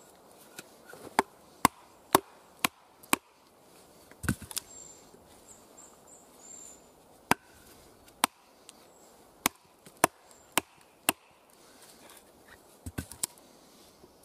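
A wooden baton striking the spine of a fixed-blade bushcraft knife, driving the blade across the grain of a log: sharp wooden knocks about half a second apart, in runs broken by short pauses.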